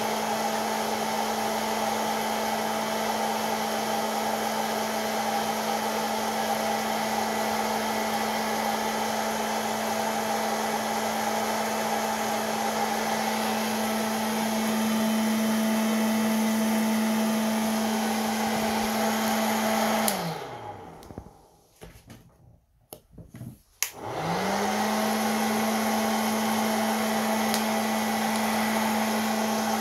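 Hot-air popcorn maker roasting coffee beans: its fan motor runs steadily with a rush of hot air and a steady hum. About two-thirds of the way in, it is switched off and the hum winds down to near silence. A few seconds later it comes back on and spins back up to full speed.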